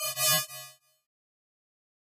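Short electronic music sting of stacked steady tones over a low note, lasting under a second.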